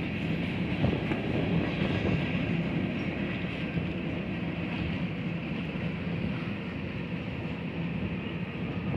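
Union Pacific freight train cars, the last a dome passenger car, rolling past with a steady rumble of steel wheels on rail and a steady low hum.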